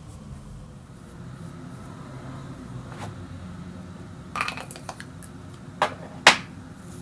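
Makeup items being handled and set down: a quick clatter of small clicks about four seconds in, then two sharp clacks near the end, the second the loudest.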